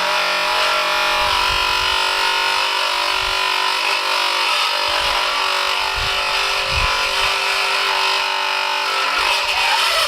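A DeWalt electric power tool running steadily with a dense whine, then cutting off abruptly at the end. The tool is not managing the job on the larch boards, by the owner's account.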